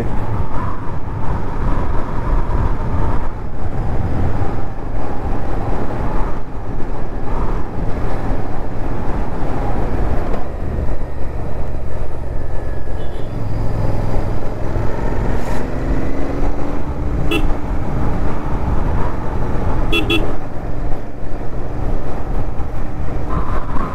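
Royal Enfield Interceptor 650's parallel-twin engine running at riding speed under steady wind noise on the microphone, with a couple of short horn toots in the latter part.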